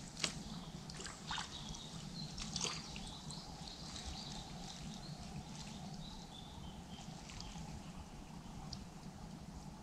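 Water splashing and dripping as hands work a keepnet of small river fish in the shallows, with a few sharper splashes in the first three seconds, the first the loudest. Faint birdsong chirps in the background.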